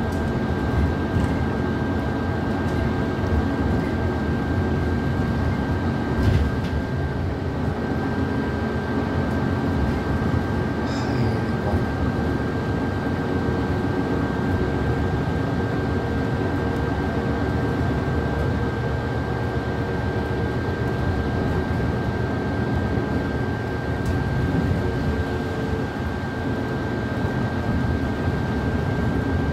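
Bus engine and road noise heard from inside the moving bus, running steadily with a thin, high whine held at one pitch over it. A brief knock about six seconds in.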